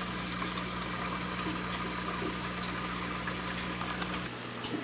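Steady low electrical hum with a hiss over it, the running equipment of a room full of aquariums; the hum drops away about four seconds in, leaving a fainter hiss.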